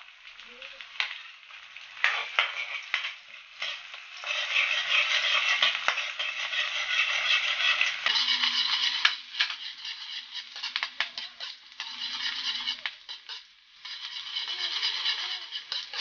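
Hot oil sizzling in a wok as garlic and squid fry, with a metal spatula stirring and clicking against the pan. The sizzle swells about four seconds in, drops away briefly near the end, then returns.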